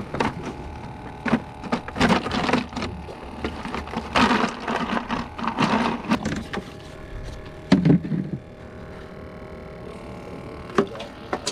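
Plastic buckets and gear being handled in a wire cart: a run of knocks, rattles and scrapes, with a heavier thump about eight seconds in.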